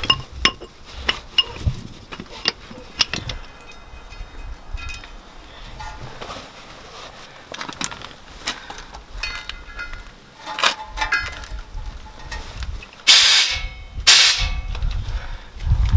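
Light clicks and knocks of hands working at a truck tire's rim, then two sharp hissing bursts about a second apart near the end, at the gap between the tire bead and the rim while the tire is being readied for bead-seating.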